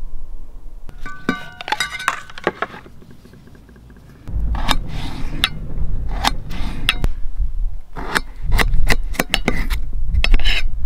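A fixed-blade knife cutting raw red potatoes into fries on an enamel plate: repeated sharp clicks and taps as the blade strikes the plate, over a low rumble, starting about four seconds in.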